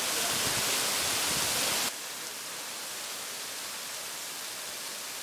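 Waterfall and its spray: a steady rush of falling water that drops suddenly to a quieter, even rush about two seconds in.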